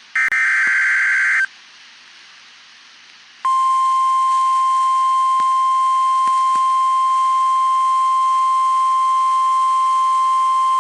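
NOAA Weather Radio warning alert: a roughly one-second burst of warbling SAME digital header data, then about two seconds of faint radio hiss, then the steady, loud 1050 Hz warning alarm tone that starts about three and a half seconds in and holds.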